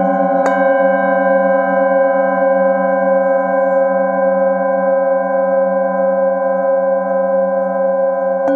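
Hand-held singing bowl struck with a padded mallet about half a second in, then ringing out in a long sustained chord of several pitches whose lowest tones pulse slowly. It is struck again near the end.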